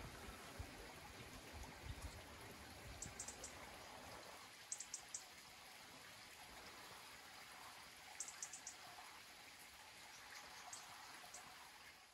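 Faint, steady outdoor background hiss, with a few soft low knocks in the first two seconds and several little runs of three or four short, high ticks.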